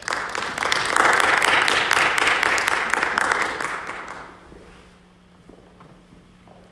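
Applause: people clapping for about four seconds, then dying away.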